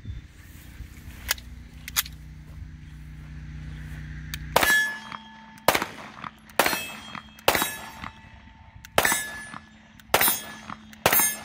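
Two faint clicks as the pistol is readied, then a Canik TP9DA 9mm striker-fired pistol firing seven shots at a steady pace of about one a second. Each report is followed by a brief metallic ring.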